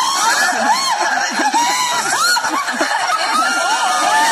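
Audience laughing and shouting, many voices at once in a steady loud din.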